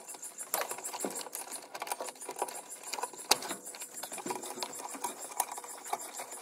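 Irregular metallic clicks and rattles from hands working on wiring and parts in an old truck's engine bay, with one sharper knock about three seconds in.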